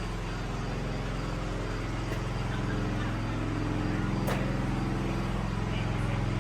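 An engine running steadily with a low, even hum, plus one faint click about four seconds in.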